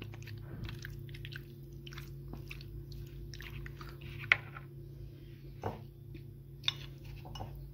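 Metal spoon working yogurt into raw chicken pieces in a plastic bowl: irregular wet squelching and scraping, with a few sharper knocks of the spoon against the bowl.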